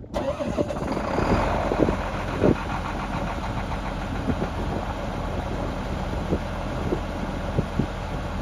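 Case IH Quadtrac 500 tractor's six-cylinder diesel engine coming in suddenly at the start and then running steadily at idle, with a few short sharp knocks over it.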